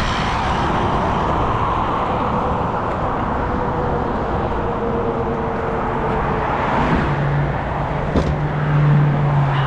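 Steady road and engine noise of a 1999 BMW 328i being driven. A strong, steady low hum comes up about seven seconds in.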